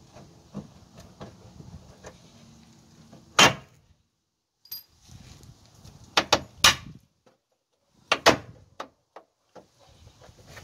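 Sharp knocks and clatter of tools and fuel-tank strap hardware under the car as the tank straps are unbolted. The loudest knock comes about three and a half seconds in, three more follow close together around six to seven seconds, and a pair comes near eight seconds, with lighter clicks between them.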